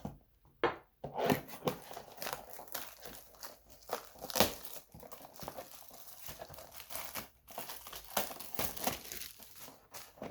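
Plastic wrapping on a trading-card box being torn open and crinkled, with irregular crackles and rustles as the foil card packs are handled.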